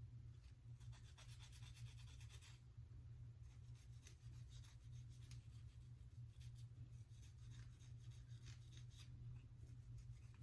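Faint scratchy rubbing and crackling of fingers pressing a lace wig front down onto dried wig glue, in short runs of strokes, over a steady low hum.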